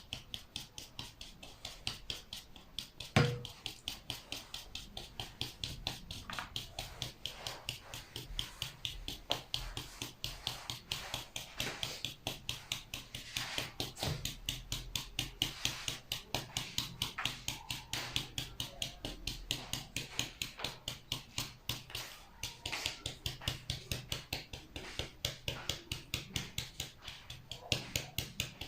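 Madeleine batter being mixed by hand in a bowl, the utensil knocking the bowl in a steady rhythm of about three strokes a second, with one louder knock about three seconds in.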